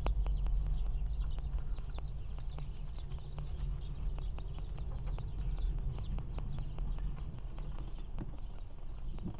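Low steady rumble of wind and road noise around a moving car, with a rapid faint ticking about five times a second.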